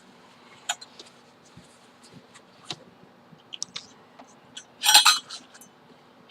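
Scattered light clicks and clinks of a spoon against a takeout food container, with one louder, longer clatter about five seconds in.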